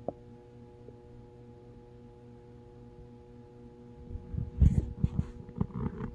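A steady background hum, then from about four seconds in a run of irregular low gurgles and rumbles from a person's growling stomach.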